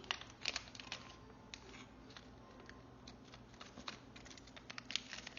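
Small toy packaging being handled and opened by hand: faint scattered clicks and light rustling, a little busier near the start and again near the end.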